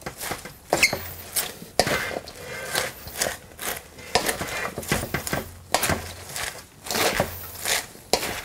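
Mixed salad greens being tossed with wooden salad servers in a large stainless steel bowl: a quick, uneven run of rustles and knocks, about two a second, as the wood scoops through the leaves and taps the metal.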